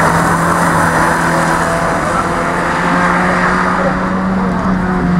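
Fiat Seicento rally car's engine running under load as the car drives the course, its pitch holding steady, rising a little about three seconds in and dropping back near the end.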